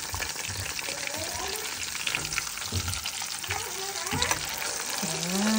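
Pork chops frying in a pan: a steady sizzle with many small crackling pops.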